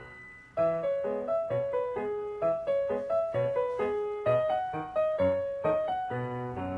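Background piano music: a gentle melody of single struck notes over lower accompanying notes, starting up again after a short pause about half a second in.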